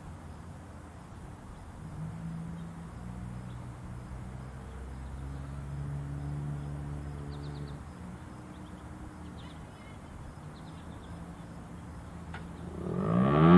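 Quiet outdoor ambience with a low steady hum that swells and fades in the middle, and a few faint high chirps. About a second before the end, the FS&S STL-10A rotating tornado siren starts winding up, its tone rising steeply and quickly getting loud.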